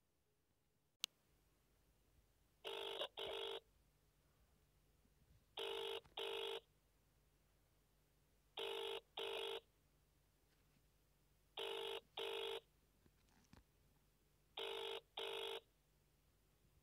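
Mobile network ringback tone played through the phone's speaker while the call waits to be answered: a double ring repeated five times, about three seconds apart. A single sharp click comes about a second in.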